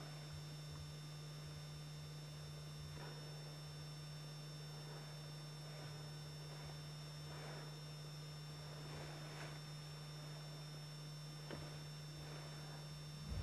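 Steady low electrical hum with faint hiss and a thin high whine, under a few faint scattered clicks and rustles.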